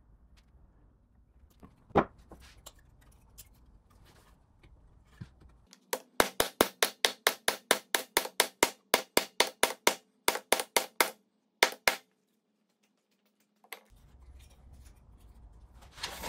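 A mallet striking wood in a fast, even run of sharp knocks, about five a second, driving a tenon home into its mortise; a single knock comes a few seconds before the run, and the run pauses briefly before a few last strikes.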